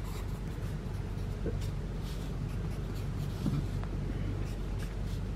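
Pencil scratching on paper in short drawing strokes as cartoon features are sketched, over a low steady hum.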